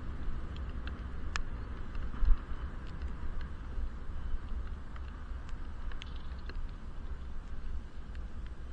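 Muffled wind and road rumble from a bicycle ride, picked up by a helmet-mounted action camera sealed in its waterproof case, with scattered light ticks throughout.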